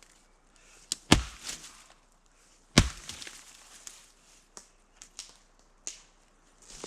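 Dry dead wood being broken up for firewood: two loud, sharp cracks about a second and a half apart, followed by a few lighter snaps and cracks.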